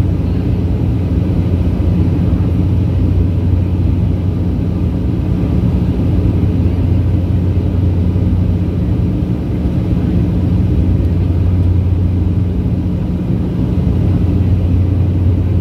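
Cabin drone of a De Havilland Canada Dash 8 Q400's Pratt & Whitney PW150A turboprops and six-blade propellers in the climb, heard from a seat beside the wing: a steady low propeller hum over a deeper rumble.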